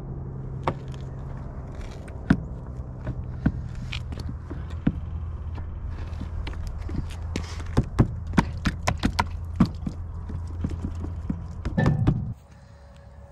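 Clicks and knocks of hands working at a plastic livestock waterer, thickest about seven to ten seconds in, over a steady low hum; the hum stops at a cut near the end.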